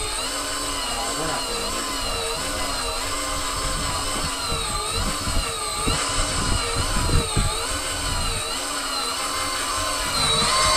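Electric deep-drop fishing reel's motor whining as it winds line in, its pitch wavering up and down as the hooked fish's pull on the line changes. A few low rumbles and thumps come in about halfway through.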